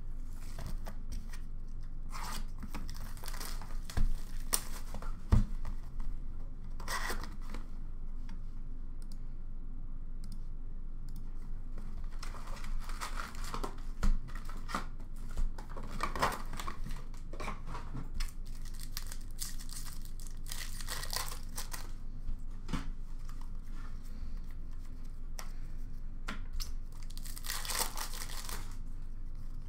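A cardboard box of 2008-09 Upper Deck hockey card packs being torn open and the foil packs ripped and crinkled by hand, in repeated rustling bursts, with a few sharp knocks.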